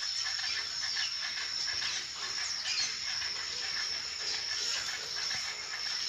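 Steady high-pitched insect drone with many short bird calls and chirps over it.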